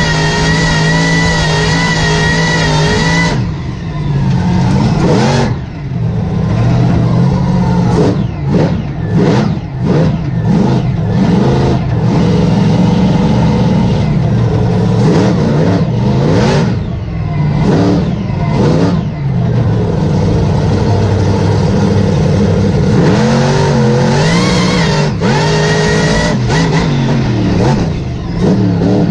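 Mega truck's engine heard from inside the cab, loud throughout. It holds at high revs for about three seconds, then is revved and let off again and again in quick succession. Later it runs steadier, its pitch rising and falling near the end.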